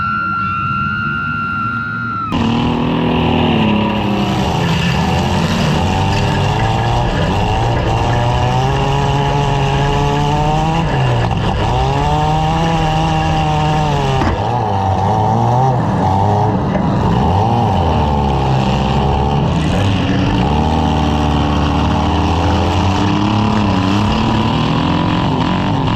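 Several car engines running and revving at once, pitches rising and falling over each other, typical of compact demolition derby cars in a heat. For about the first two seconds a steady high tone sounds over them, then the engines take over.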